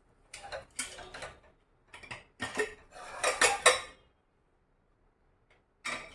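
Metal kitchen utensils and dishes clattering and scraping in several short bursts over the first four seconds, then once more near the end.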